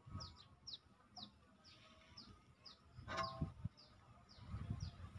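A bird repeating a short, high, falling chirp about twice a second, faint, with a brief louder call about three seconds in and faint low thumps.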